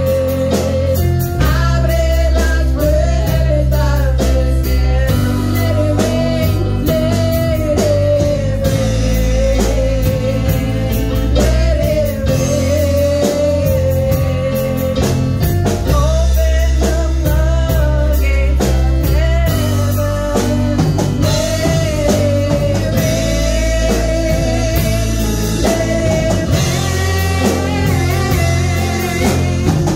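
A live worship band: two women singing a slow, sustained melody into microphones over electric guitar, keyboard and drum kit, played through a PA system.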